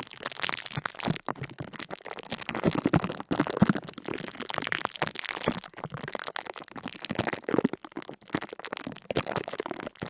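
Continuous dense crackling and crunching: many small, irregular cracks in quick succession.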